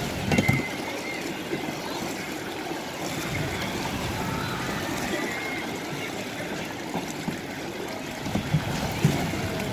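Water churning and sloshing in the shallow pool of a spinning boat ride as the small boats whirl through it, a steady wash with a few short bumps near the start and near the end.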